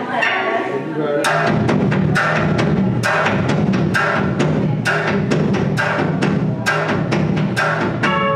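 Live band music: sharp percussive hits in a steady beat of about two a second start about a second in, over a dense low sustained layer from electric guitar and bass.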